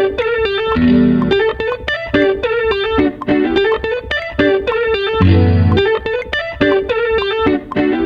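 Instrumental beat: a quick repeating run of plucked, guitar-like notes, with deep sustained bass notes about a second in and again a little past five seconds.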